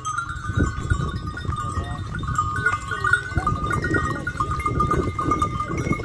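Flock of sheep and goats bleating on and off, with the calls coming at scattered moments.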